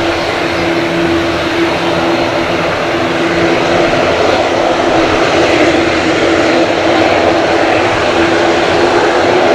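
Loud, steady noise of a Boeing 787-9 airliner's jet engines passing close by, with a low humming tone through it, growing slightly louder toward the end.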